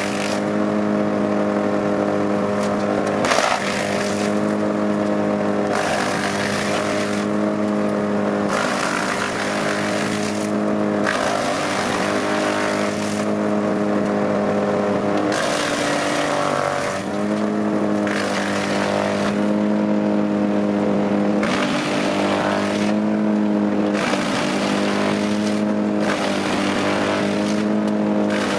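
Wood chipper's engine running steadily under load while chipping a pine tree, with repeated bursts of grinding, chipping noise every second or two as the trunk and branches are fed in. About two-thirds of the way through, the engine briefly sags in pitch as it takes a heavier bite.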